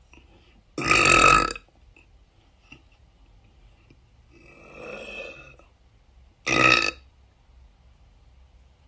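A woman's deep burps: two loud belches, the first lasting nearly a second and the second about half a second, with a quieter, longer sound between them.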